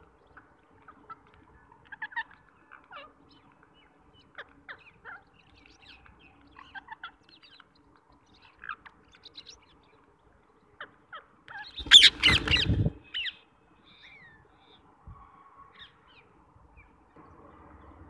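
Rose-ringed parakeets giving scattered short chirps and calls at close range, with a loud flurry lasting about a second around twelve seconds in as the flock takes off.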